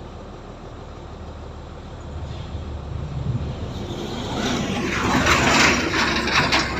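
Heavy diesel earthmoving machinery running, growing louder from about two seconds in, with rattling and clanking over the engine near the end.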